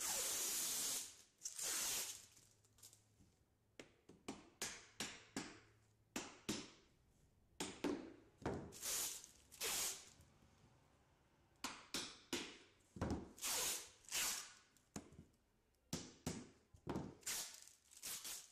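Blue plastic protective film being peeled off the front face of a roof kerb-edge trim, in a string of short, irregular rips.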